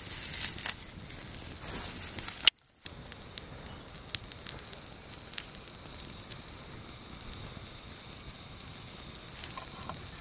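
Small campfire of wood and ferns burning, crackling and popping with frequent sharp snaps over a steady hiss. One loud snap comes about two and a half seconds in, followed by a moment's silence.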